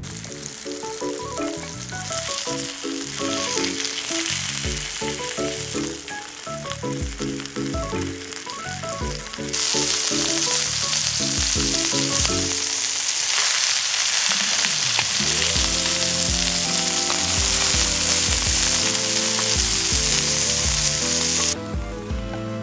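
Food frying with a loud, steady sizzle that jumps louder about ten seconds in and cuts off abruptly near the end, with background music.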